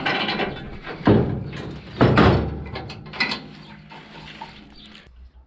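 Heavy metal thuds and clanks from the steel frame of a disc harrow being worked on, two loud knocks about one and two seconds in, followed by lighter clinks.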